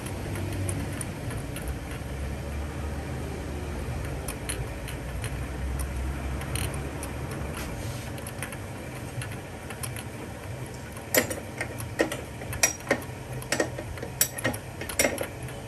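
A spark plug spanner clinking and clicking against metal as a spark plug is threaded into the Bajaj Pulsar RS200's cylinder head and snugged down. Irregular sharp clicks start about two-thirds of the way in, over a steady low hum.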